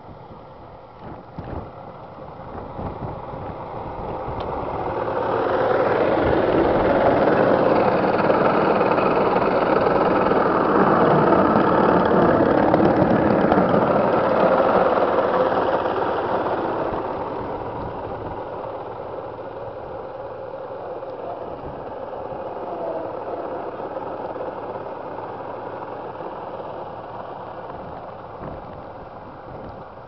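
A rail truck's engine running. It grows louder over a few seconds, stays loud for about ten seconds, then drops back to a lower steady level.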